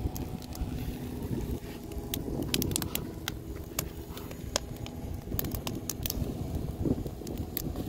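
Wood fire crackling, with irregular sharp pops that come in clusters, over a steady low rumble.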